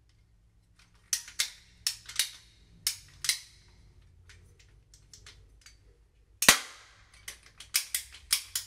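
Ratcheting pipe cutter closing on a plastic drain pipe: a run of sharp clicks as the handles are squeezed, a louder crack about six and a half seconds in, then quicker clicks near the end.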